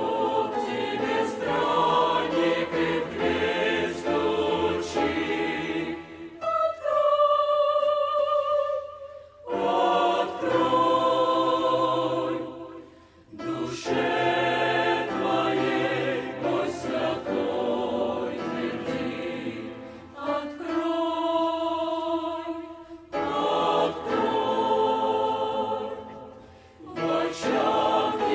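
Choir singing a Russian evangelical hymn in several parts, in phrases with brief breaks, twice settling into long held chords.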